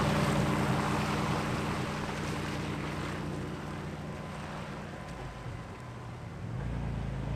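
A 1991 Toyota 4Runner driving through a wet parking lot, its tyres hissing on the wet pavement and puddles over the steady engine. It is loudest at first and fades as the truck pulls away, then grows a little louder again near the end.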